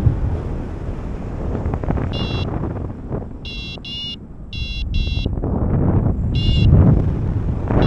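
Paragliding variometer app on a phone beeping its climb tone, a sign the glider is in rising air: six short high beeps, some in pairs. Wind rushes over the microphone underneath.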